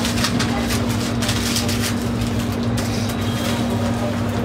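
Steady street background din: a low rumble of road traffic under a constant hum that holds one pitch, with scattered faint ticks.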